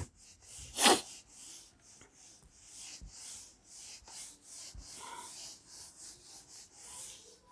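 Faint, irregular scratchy rubbing strokes, with one louder rush of noise about a second in.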